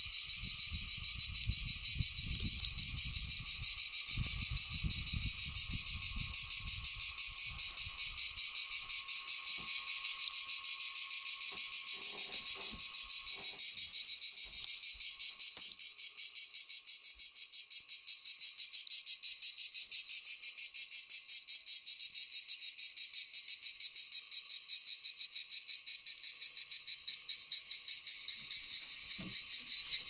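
A cicada singing at close range: a loud, continuous, high-pitched buzzing that turns into a pulsing rhythm about halfway through.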